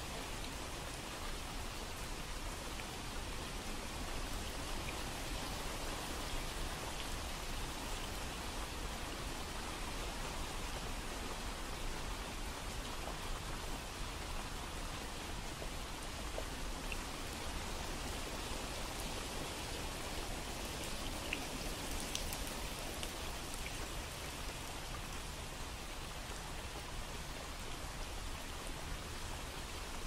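Steady rain falling, an even hiss with scattered drop ticks, a few sharper ones a little past the middle.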